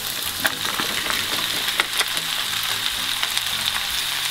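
Beef and onion sizzling in a hot frying pan as sliced zucchini and red pepper are tipped in, with a few sharp clicks of the pieces and a wooden spatula against the pan.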